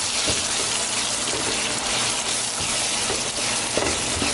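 Chopped tomatoes, onions and spices sizzling steadily in hot oil in a pan while being stirred with a wooden spatula, with a few light scrapes of the spatula.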